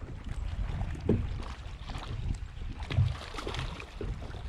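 Low wind rumble on the microphone in an open fishing boat, with a few dull knocks against the boat as a hooked fish is brought in; the loudest knocks come about a second in and again at three seconds.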